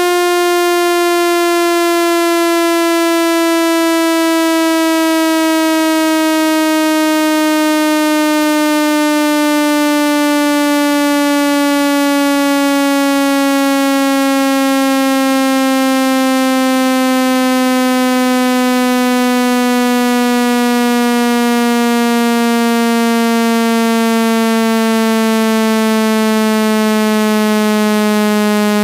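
Synthesized speaker-cleaning tone: a loud, buzzy electronic tone rich in overtones, gliding slowly and steadily down in pitch. It is played to vibrate water and dust out of a phone speaker.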